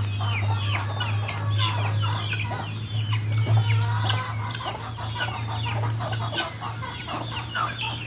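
A pen of chickens and guinea fowl calling and clucking, with many short calls overlapping. A steady low hum runs underneath and eases off about two-thirds of the way through.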